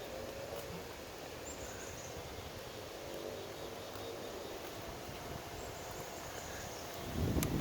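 Quiet outdoor ambience by a still creek, with faint distant bird calls; a louder low rustle comes in near the end.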